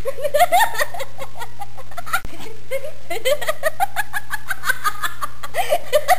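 A person laughing and giggling in a long, unbroken run of quick, rising "ha" sounds.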